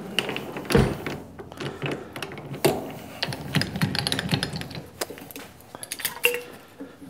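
Metal tools and lathe tooling handled by hand: irregular clicks, knocks and small metallic clatters, with a dull thump about a second in.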